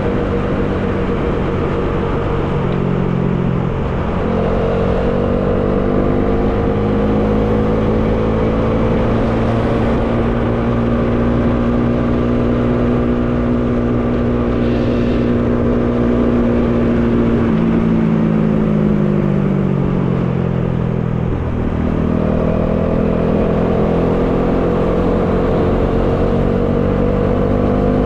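Bajaj Dominar 400's single-cylinder engine under way, heard from the rider's seat with wind noise over it. The engine note climbs a little about four seconds in and holds steady. It falls away for a few seconds as the rider rolls off, then picks up again about twenty-two seconds in.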